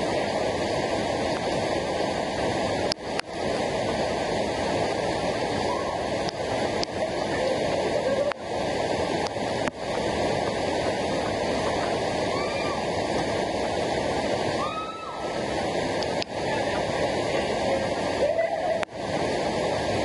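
Waterfall water rushing, a steady dense noise broken by a few brief dips in level.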